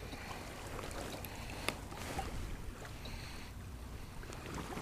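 Wind rumbling on the microphone, with a single sharp click about one and a half seconds in.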